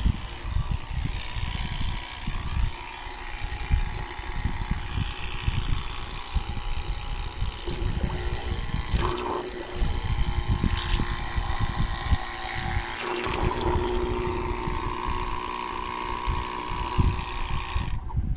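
12V DC water spray pump running and spraying water, with a steady motor whine coming in partway through, over a low uneven rumble. The pump and spray sound stops just before the end.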